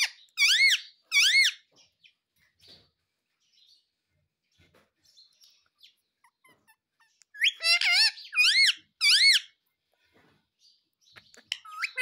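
Indian ringneck parakeet calling in loud, high squawks that each rise and fall in pitch: two near the start, a run of three or four about seven and a half seconds in, and more beginning near the end.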